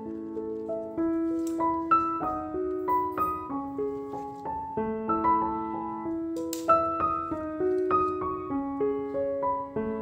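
Background piano music: a gentle melody of single notes over held lower notes.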